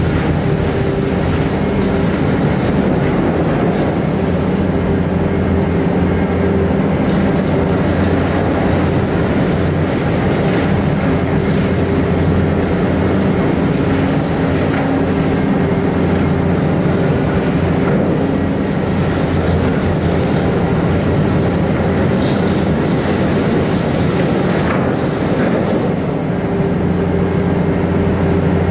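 Kinshofer hydraulic drum cutter on a Terex Fuchs MHL 350 grinding salt off a tunnel face. The grinding is heard as a loud, steady drone over the machine's running hum.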